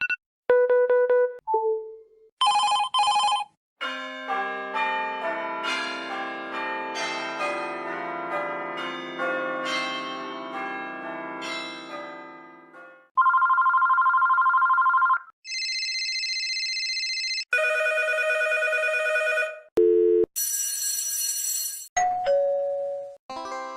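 A series of different telephone ringtones played one after another: a few short electronic beeps, then a melodic ringtone tune lasting about nine seconds, then several electronic trilling rings of about two seconds each.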